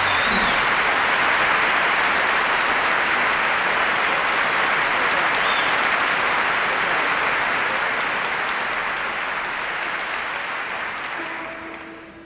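Large concert audience applauding at the end of a song, the applause dying away near the end.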